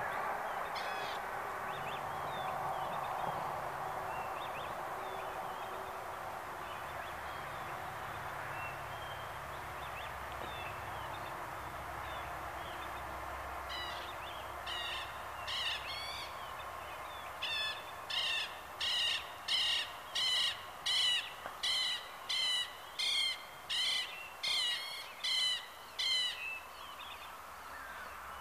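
Southern lapwing giving harsh, scratchy calls, starting about halfway through and turning into a fast, even series of about two calls a second before it stops near the end. A steady low background hum and faint chirps lie under it.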